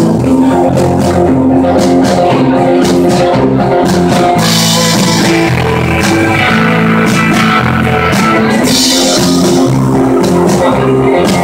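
A live rock band playing: electric guitars, bass guitar and drum kit, loud and steady, with cymbals crashing a few times.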